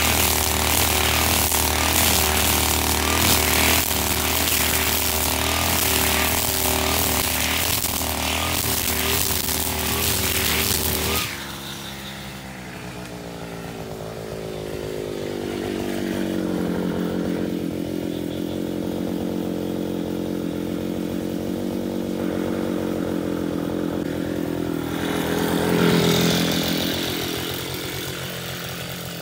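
Husqvarna 542RBS two-stroke backpack brush cutter running hard, its trimmer line slashing through thick grass. About eleven seconds in, the cutting noise stops and the engine note drops and settles at a lower, steady speed, with a brief rev near the end.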